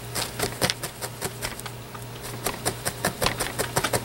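Felting needle jabbing repeatedly through wool roving into a foam block, tacking a small wool spot onto a felted body: a quick, irregular run of sharp little clicks, several a second, over a steady low hum.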